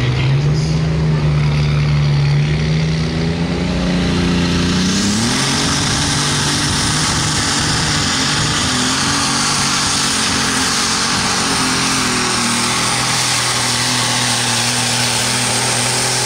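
Light super stock pulling tractor's engine revving up sharply about five seconds in, then running flat out at high revs in a loud, steady run with a faint high whistle on top.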